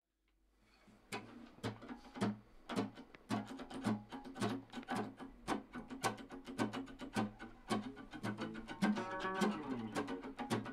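Two acoustic guitars playing a rhythmic instrumental intro with sharp, regular strummed and plucked accents, fading in over the first second. A quick run of notes comes near the end.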